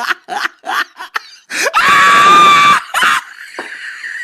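A person screaming loudly in fright for about a second, the cry rising in pitch at its start and then held. It comes after a run of short, quick vocal bursts, about four a second.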